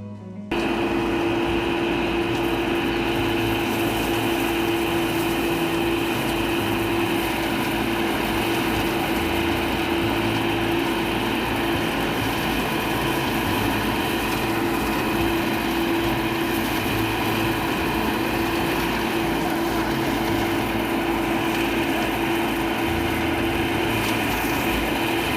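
Engine-driven threshing machine running steadily, threshing harvested black gram, with a constant hum and a steady drone from its beater drum and fan. It starts abruptly about half a second in.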